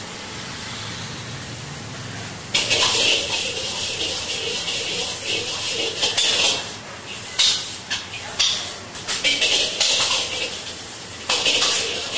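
Food sizzling loudly in a hot oiled iron wok, starting suddenly about two and a half seconds in as fresh ingredients go in. It then comes and goes in bursts as the food is tossed and stirred with a long-handled metal ladle, with scraping and clinks of ladle on wok.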